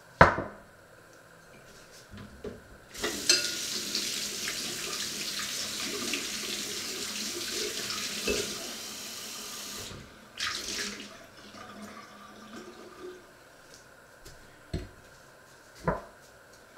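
Kitchen tap running into a stainless steel sink for about seven seconds, then a brief second run of water. A sharp knock comes at the start, and two knocks near the end as a glass is set down on a wooden chopping board.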